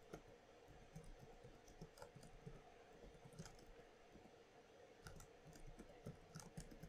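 Faint computer keyboard typing: scattered key clicks, with quicker runs of keystrokes in the second half.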